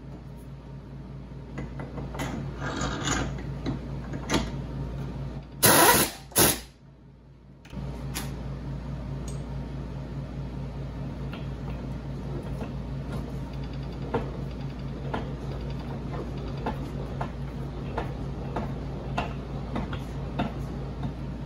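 King Canada KC20VS bench mill running steadily with a drill bit in its chuck, light scattered ticks over the motor hum as the bit is brought to the metal plate. About six seconds in, two short, very loud bursts of noise, then a brief quieter moment before the mill's steady run resumes.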